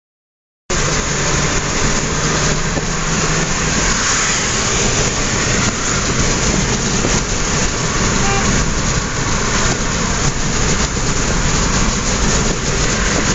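Steady road and wind noise heard inside the cabin of a moving car, with a low engine hum beneath it. It begins abruptly just under a second in.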